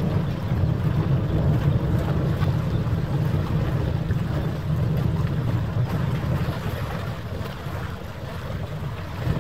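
Wind buffeting the microphone: a loud, uneven low rumble that dips slightly near the end.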